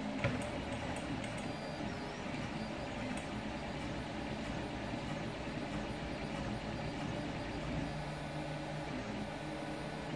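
Homebuilt CoreXY 3D printer running a print: stepper motors whining in shifting tones as the print head moves, over steady fan noise. A single sharp click sounds just after the start.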